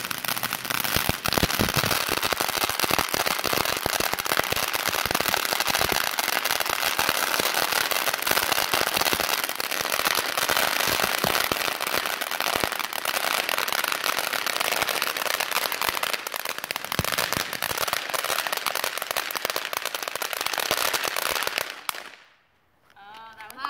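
Ground fountain fireworks spraying, a steady hiss thick with rapid crackling pops, that dies away about 22 seconds in.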